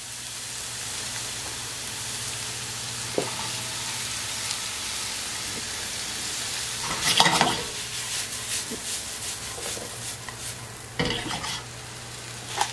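Finely chopped bell pepper and onion sizzling steadily in hot olive oil in a small frying pan. There are brief louder knocks and scrapes about seven and eleven seconds in as the vegetables are pushed around the pan.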